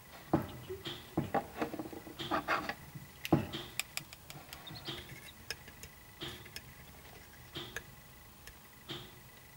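Corncrake chicks peeping, short high calls repeating about every second and a half, with a cluster of knocks and taps in the first few seconds, the two loudest about three seconds apart. A faint steady high tone runs underneath.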